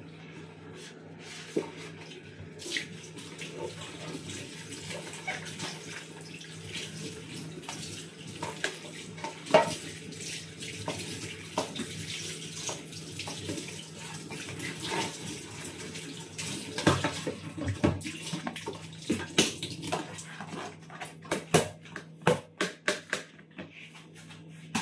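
Kitchen tap running into a stainless-steel sink while plastic bags are rinsed under it. Sharp clicks and knocks of handling join in over the second half, thickest near the end.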